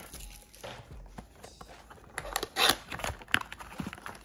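Hands handling a cardboard trading-card blaster box and its plastic wrap: soft rustling, a louder crinkling scrape about two and a half seconds in, then a couple of light taps.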